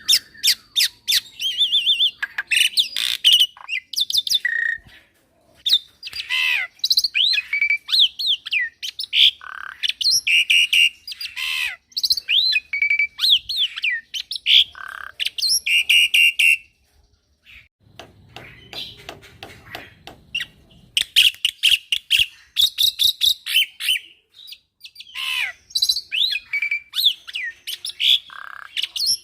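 Young black-winged myna (jalak putih) singing a full, varied song in quick bursts of chattering notes, squawks and sliding whistles. About two-thirds through there is a short quieter stretch of soft clicking.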